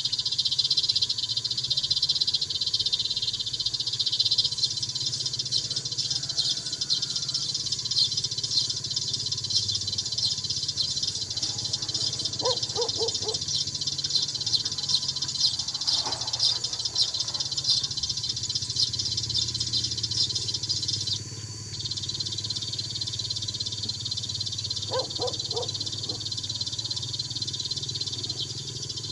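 A dense, continuous chorus of tree sparrows chirping, a rapid rattling chatter that drops abruptly in level about two-thirds of the way through.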